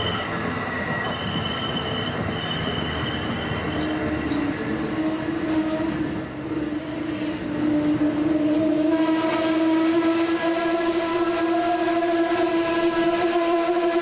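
Amtrak Northeast Regional train on the move, its steel wheels rumbling and then squealing in a steady, sustained tone. The squeal begins a few seconds in and holds, rising slightly in pitch.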